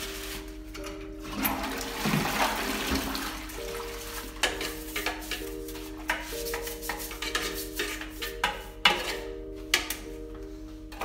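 Background music with sustained notes over toilet cleaning: a rush of water in the bowl about two seconds in, then repeated scrubbing strokes and knocks of a toilet brush against the porcelain bowl.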